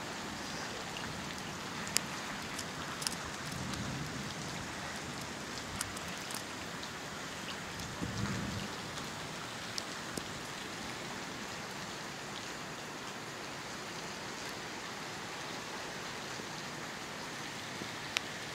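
Steady rain falling, with scattered sharp drop hits and two brief low rumbles about four and eight seconds in.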